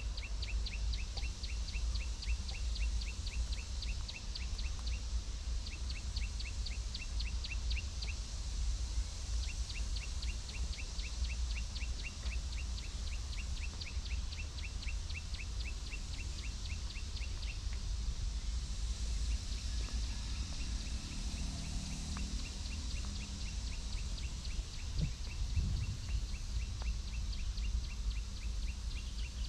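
A bird calling with a rapid, evenly spaced series of high chirps, several a second, in runs of a few seconds that stop and start again. Under it runs a steady low rumble of outdoor background noise.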